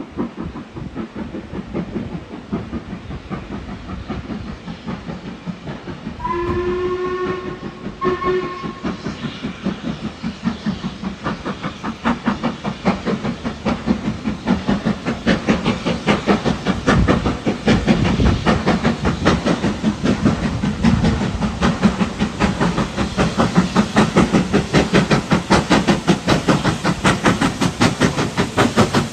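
LMS Stanier Black Five steam locomotive 5428 working hard on approach. Its whistle sounds two blasts, a longer then a shorter one, about six seconds in. Then its exhaust beats build into a steady rapid rhythm, growing louder as it draws near.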